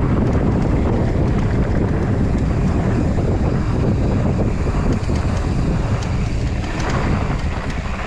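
Wind buffeting the microphone of a camera on a mountain bike riding fast down a dirt trail, mixed with the rumble and rattle of the tyres and bike over the rough ground.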